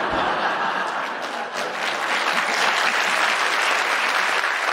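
Audience applauding, starting at once and holding steady throughout.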